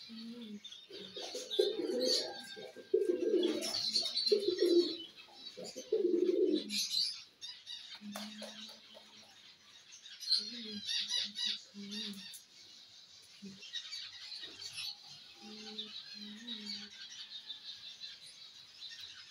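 Fantail pigeons cooing in short, low, repeated coos, loudest in the first third. Bursts of wing flapping and rustling break in between.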